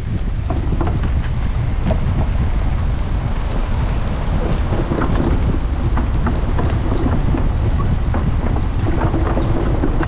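Wind rumbling steadily on the microphone of a moving bicycle, with irregular knocks and rattles as the tyres roll over the wooden plank deck of a suspension footbridge.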